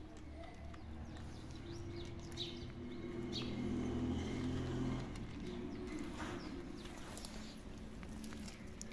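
Kittens eating dry kibble, with scattered crunching and rustling of a plastic food bag. A low steady drone underneath grows louder for a few seconds in the middle.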